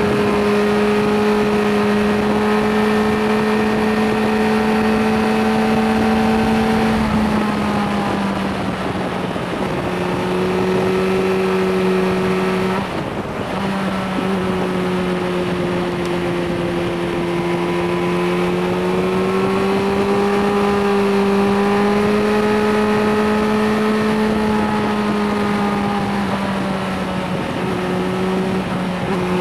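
Suzuki GSR 600's inline four-cylinder engine, restricted to 25 kW, running under way at a fairly steady pitch. The note breaks off briefly about halfway through, then sags and climbs again, with another short dip near the end.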